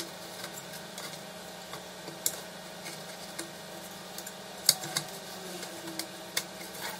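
A few scattered light clicks and taps of plastic parts being handled: a flexible printed-circuit sheet pressed and fitted onto the back of a Fiat 128 instrument-cluster housing. The sharpest click comes about two-thirds of the way through, over a steady low hum.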